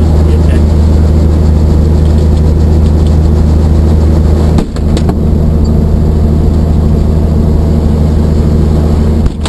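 Helicopter engine and rotor running steadily at ground idle, heard loud from inside the cabin, with two brief dips in level about four and a half and nine seconds in.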